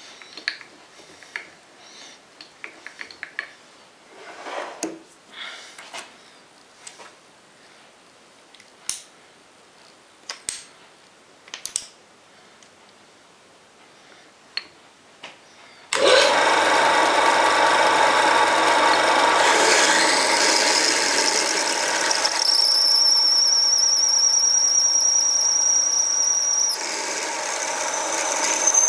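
Scattered clicks and knocks of tooling being set up on a lathe. About halfway through, the home-built mini lathe's 750 W single-phase motor starts and runs steadily while a twist drill in the tailstock bores into a metal bar held in the spinning chuck. For a few seconds near the end, a high steady whine rides on top of the running sound.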